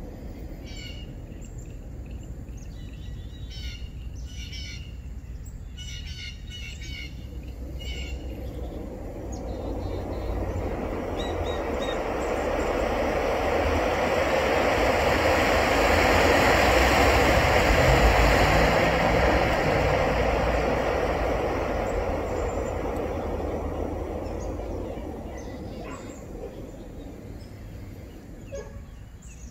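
Gas camping stove burner hissing, growing gradually louder as the canister valve is opened up, then fading as it is turned back down. Birds chirp in the first few seconds.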